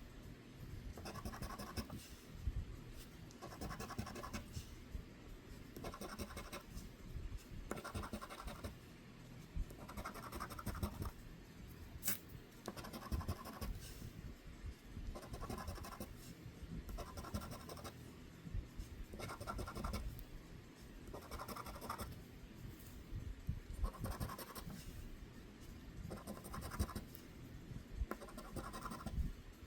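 Scratch-off lottery ticket being scratched, its coating scraped off in short strokes that repeat about every second and a half.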